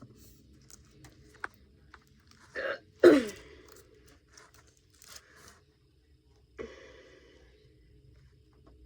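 A tape-wrapped Play-Doh popper being squeezed, air popping out of the gap in short squelching bursts; the loudest comes about three seconds in and drops quickly in pitch, with smaller clicks and handling noises around it.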